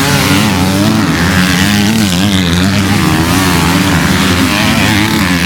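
Several motocross motorcycle engines revving together in a loud, continuous din, their pitches rising and falling unevenly.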